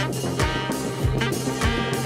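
Background music with a steady beat, about two and a half beats a second, over a held bass line.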